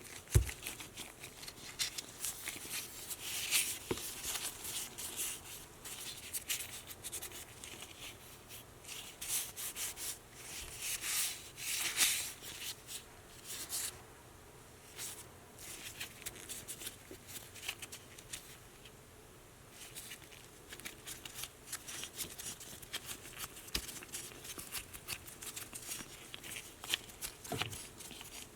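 Irregular runs of hand rubbing and scraping strokes, the sort of sound made when scrubbing or sanding a small tool by hand, with a knock just after the start and a few light clicks.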